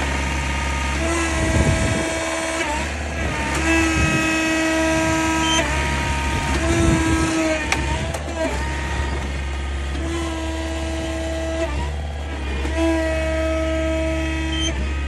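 AECT 3500 compressed earth block machine running through its pressing cycles: a steady engine drone under a pitched whine that comes and goes about five times, holding one to two seconds each time and dipping in pitch as it starts and stops.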